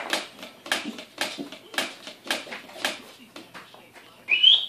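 A person coaxing a dog with quick clicking calls, about two a second, then a short rising whistle near the end.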